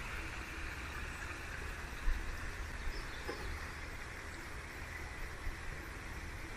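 Faint steady background noise with a low rumble, and a single soft knock about two seconds in.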